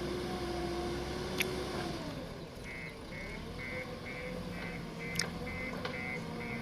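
JCB 3DX backhoe loader's diesel engine running, its pitch dropping about two seconds in and then climbing again, with two sharp metallic clanks. From about midway a reversing alarm beeps about twice a second.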